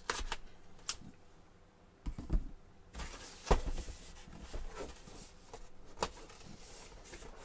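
Hands opening a cardboard action-figure box by its tab: scattered clicks, taps and rustles of the cardboard packaging, the sharpest knock about three and a half seconds in.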